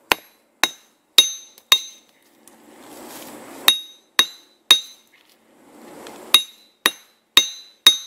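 Metal-on-metal hammering: a red hatchet used as a hammer strikes a small hatchet to drive its loose head back onto the wooden handle. About eleven sharp, ringing blows come in three quick bunches of three or four, roughly two a second, with brief rustling between the bunches.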